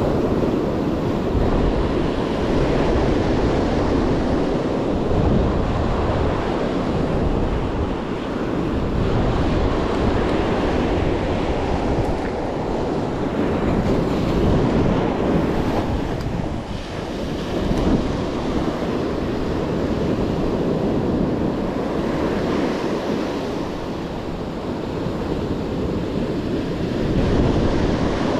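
Ocean surf breaking and washing up the sand, rising and falling as each wave comes in, with wind buffeting the microphone.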